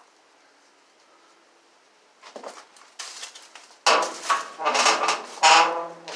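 Clattering and knocking of metal objects being handled, starting about two seconds in, with the loudest clanks around four and five and a half seconds in.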